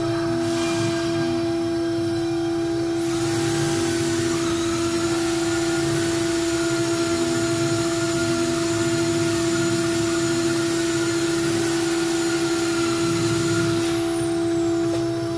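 CNC wood router carving a wooden cylinder on its rotary axis, the spindle giving a steady hum. About three seconds in, a louder hissing machine noise with a very high whine joins it. Near the end it stops, the whine falling away as it winds down.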